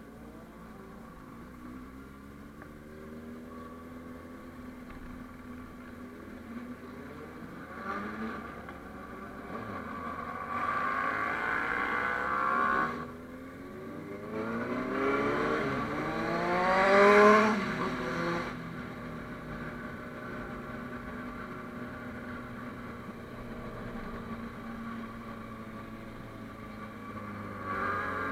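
Honda CB650F's inline-four engine under way, rising in pitch as it accelerates. The strongest and loudest climb comes about two-thirds of the way through, then it eases back to a steady cruise.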